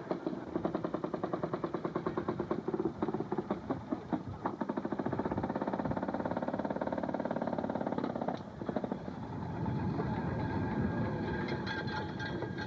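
Railroad motorcar's two-stroke engine running with a rapid, even popping exhaust. It quickens about four seconds in, then drops away about eight seconds in.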